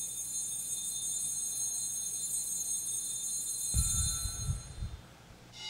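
Altar bells rung for the elevation of the host at the consecration: a high, shimmering jingle that rings on for about five seconds and fades. A few low knocks come around four seconds in, and a lower-pitched bell is struck right at the end.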